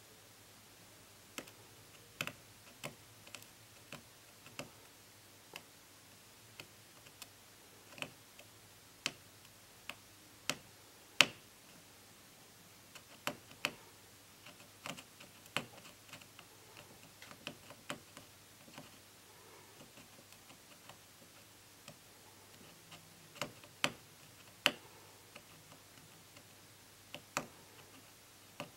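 Irregular small sharp clicks and ticks as the tip of a pen-like tool taps and presses on a TV panel's COF flex ribbon during a repair of moisture-damaged traces, some single, some in quick clusters, the loudest about eleven seconds in.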